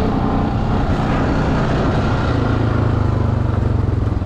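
Off-road vehicle's engine running steadily under way, a low even note that grows a little stronger about halfway through.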